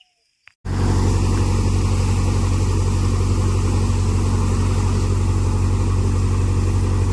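Engine running steadily and loudly, cutting in abruptly just over half a second in after near silence.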